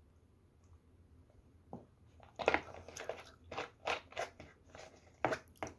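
Plastic water bottle crackling in the hand: a run of sharp crinkly snaps as it is handled and the cap is screwed back on after drinking.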